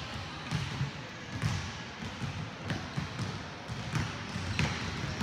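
Basketballs bouncing on a hardwood gym floor: a string of irregular thuds, roughly one or two a second.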